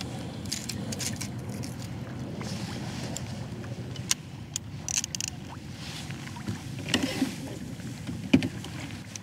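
Water sloshing against a kayak's hull while trolling, with a few sharp knocks and clicks from gear on the boat, the loudest near the end.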